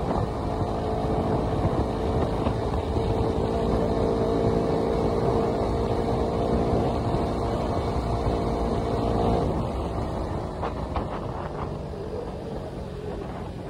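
Suzuki Raider R150's single-cylinder four-stroke engine running at steady cruising speed with wind rushing over the microphone. About nine and a half seconds in, the steady engine note drops away and the sound grows quieter, as when the throttle is closed and the bike rolls off.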